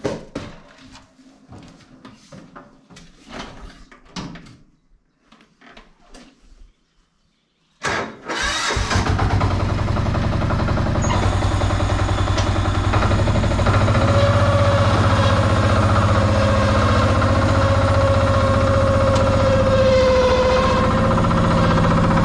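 A few scattered knocks and clicks, then about eight seconds in an old McCormick D-430 tractor's diesel engine is cranked briefly, catches and settles into a steady idle. It starts readily despite having stood unused for over three months.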